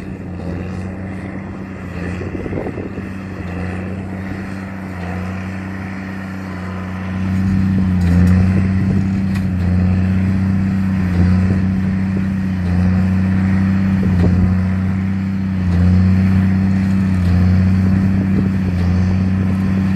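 Tractor engine running steadily; its drone gets louder about seven seconds in, then swells and eases at a regular pace, roughly once every second and a half.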